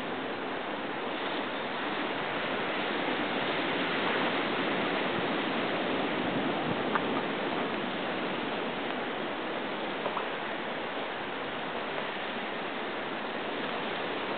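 Ocean surf washing against a rocky shore: a steady rushing hiss that slowly swells and eases. Two brief, faint high chirps sound about seven and ten seconds in.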